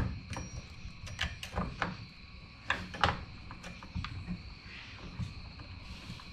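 Scattered light clicks and knocks as a replacement saw chain is worked by hand onto the bar of a Husqvarna 450 Rancher chainsaw.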